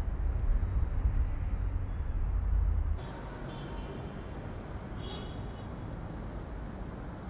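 Steady low road rumble inside a moving car. About three seconds in it cuts off abruptly, leaving a quieter steady hiss of distant traffic ambience with a couple of faint high tones.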